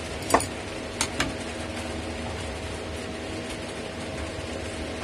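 One sharp knock, then two quick clicks about a second in, from tools being handled against the laptop's plastic underside. After that only a steady low background hum.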